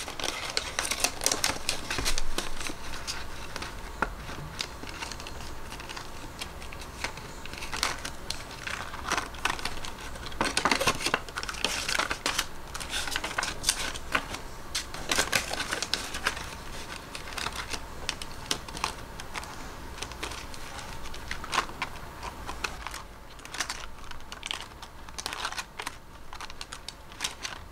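Paper banknotes being handled and stuffed into binder envelopes: rustling and crinkling with many small irregular clicks and taps.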